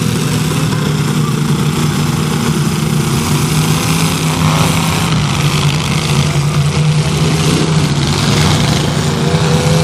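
Several demolition-derby cars' engines running together in the arena, a loud steady drone.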